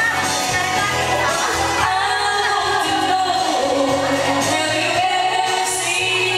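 Karaoke: a woman singing through a microphone over a loud pop backing track.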